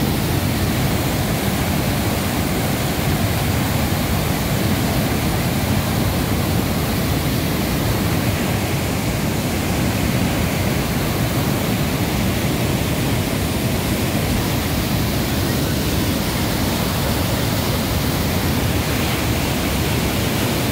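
Muddy river water pouring over a low masonry weir and churning in the pool below: a steady, unbroken rush of water.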